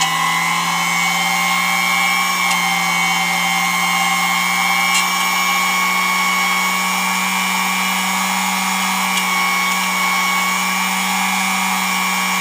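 A Dumore sensitive drill press's AC-DC motor running steadily, a whine over a low hum. It has an unexplained running noise that the owner doubts is a bad bearing.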